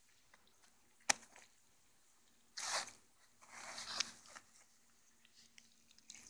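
Wet keepnet mesh being handled, with a hand moving a roach about inside the net: a sharp click about a second in, then two short rustles around the middle.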